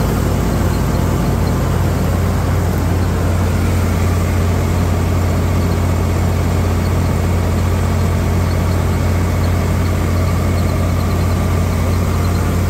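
Swaraj 855 FE tractor's diesel engine running steadily, driving a multi-crop thresher working on wheat, with an even low drone and no changes in pace.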